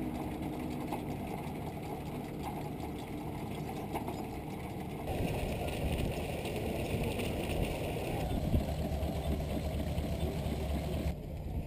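Vintage threshing machinery running steadily: a portable steam engine turning its flywheel and a long flat drive belt to power a threshing machine. The sound changes abruptly about five seconds in.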